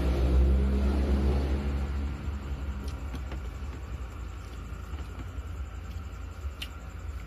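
A motor vehicle engine drones and fades away about two seconds in, leaving a low steady rumble with a few faint clicks.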